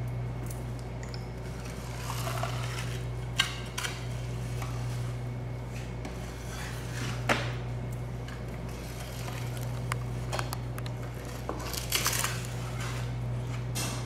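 Scattered sharp clinks and knocks of a knife and a large bluefin tuna loin being handled on a wooden cutting board, the strongest about three and a half seconds in, about seven seconds in and near twelve seconds, over a steady low hum.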